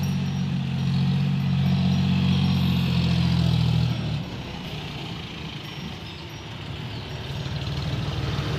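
A tractor's diesel engine running with a steady low hum, which drops in level and turns rougher about four seconds in.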